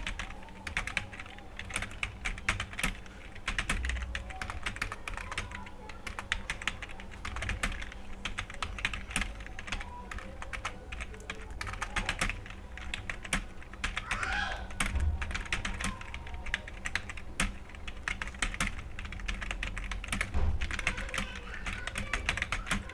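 Fast, continuous typing on a computer keyboard: a dense, irregular patter of key clicks during a timed typing test.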